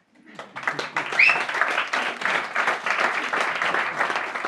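Audience applauding, the clapping building up quickly over the first second and then holding loud. A short high-pitched sound rises above the clapping about a second in.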